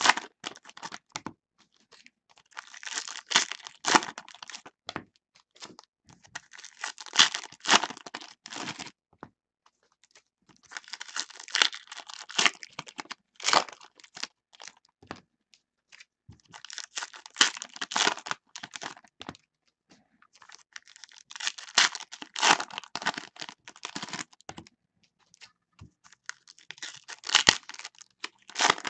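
Foil wrappers of 2015 Panini Contenders Baseball trading-card packs being torn open and crinkled one after another, in bursts of crackling every few seconds with short pauses between.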